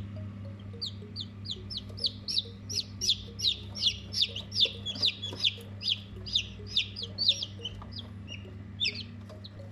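Baby chicks peeping: a rapid run of short, high-pitched calls that slide downward, several a second, over a steady low hum.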